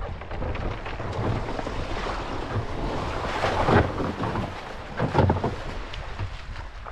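Shallow sea water splashing and sloshing around a sea kayak as the paddler climbs out and steps into the water, with wind buffeting the microphone. Two louder splashes come a little past halfway and about five seconds in.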